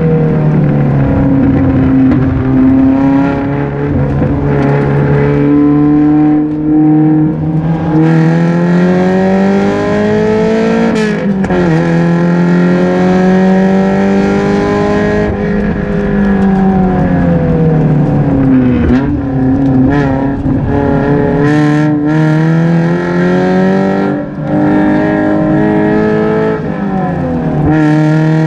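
Race car engine running hard under load, its pitch climbing and falling again and again as it revs up through the gears and slows for corners, with a sudden drop in pitch about eleven seconds in.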